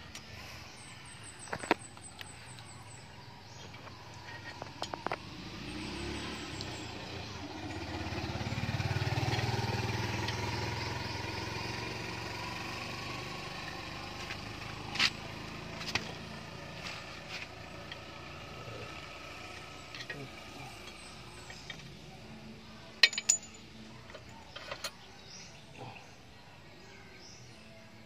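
Scattered sharp metallic clinks and taps from hand tools and parts being handled during work on a van's wheel hub. A passing vehicle swells and fades about nine seconds in.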